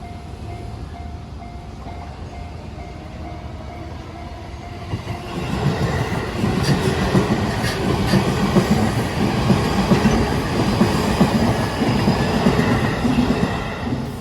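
A level-crossing warning bell rings in steady pulses. About five seconds in, a JR Nambu Line E233 series electric train arrives and passes close by, its rumble and wheel clatter over the rails drowning out the bell until near the end.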